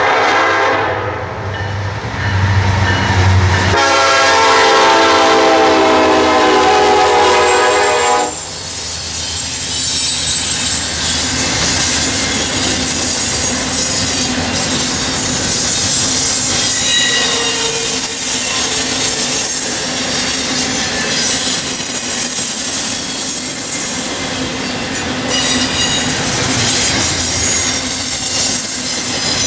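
Diesel freight locomotives running past with a deep steady drone, then a train horn sounding one long chord for about four seconds. After that, a double-stack intermodal freight train rolls by, its wheels squealing and clattering steadily on the rails.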